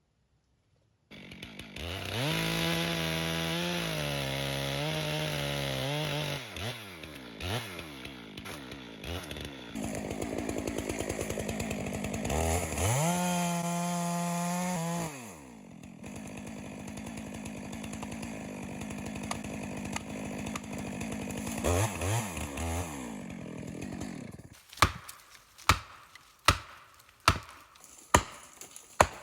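Chainsaw cutting a dead Douglas fir: the saw is opened up to full throttle twice for several seconds at a time and drops back to a lower, steadier running speed in between. Near the end come sharp knocks in a steady rhythm, a little faster than one a second.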